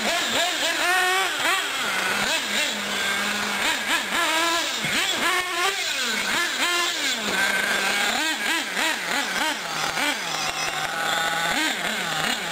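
Small nitro engines of R/C cars on a dirt track, revving up and down over and over as they accelerate and brake around the corners, with a steady idle tone underneath at times.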